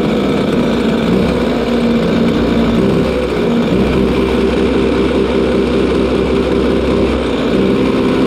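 Kart engine idling with the kart stationary, its note shifting slightly about three seconds in; a newly fitted engine being run in.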